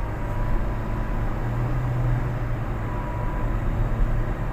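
Toyota Vios 1NR four-cylinder engine and road noise, a steady low drone heard from inside the cabin while driving on the highway, as the scan tool logs misfires on cylinder number 1.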